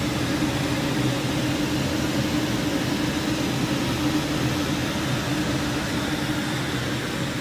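Kitchen range hood exhaust fan running steadily on high: a constant rush of air with a low hum, drawing off the gas oven's combustion exhaust while it preheats.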